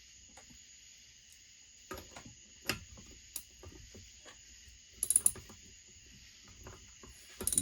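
Socket ratchet clicking in short spells, with scattered metal ticks and a quick run of clicks about five seconds in, as it turns a Husqvarna 1100CD chainsaw engine over for a squish check with solder in the cylinder.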